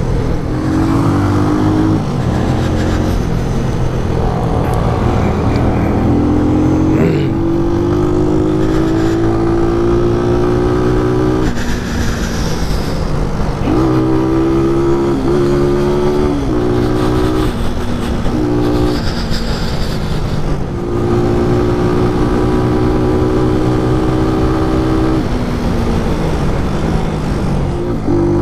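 Motorcycle engine running on the road under the rider's throttle. Its pitch climbs steadily, drops back and climbs again several times as the rider accelerates, shifts gears and eases off, with a few stretches held at steady speed.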